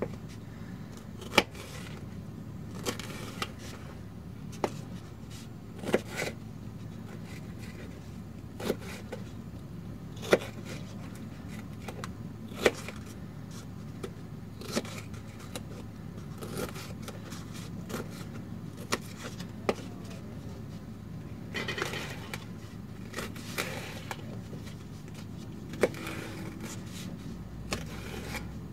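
A small kitchen knife chopping a red bell pepper on a paper plate: sharp, irregular knocks every second or two, over a steady low hum.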